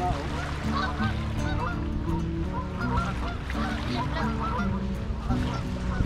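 Many short honking bird calls over background music with held low notes.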